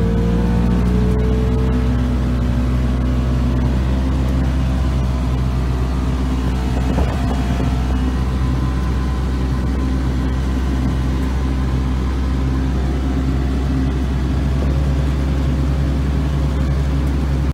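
Polaris RZR side-by-side's engine running steadily at travelling speed, with tyre and road noise from the gravel track, heard from inside the cab.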